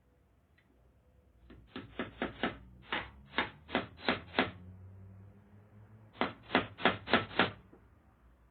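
Hammer driving nails: a run of about nine quick strikes, a pause of under two seconds, then about six more.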